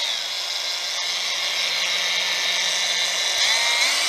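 DeWalt DCG416VSB 20V brushless variable-speed angle grinder running with no load. Its whine drops to a low speed and holds steady, then climbs in steps near the end as the speed is turned up.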